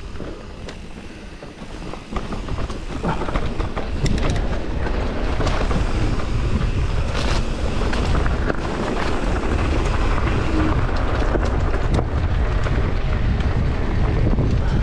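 Wind buffeting the camera microphone and tyres rumbling over a dirt trail as an e-mountain bike rides downhill fast, with scattered knocks and rattles from bumps. It gets louder between about two and four seconds in as speed picks up, then stays steady.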